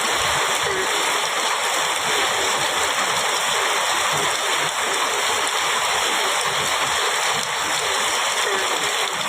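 Heavy rain falling steadily on a metal roof, a dense, even hiss of drops.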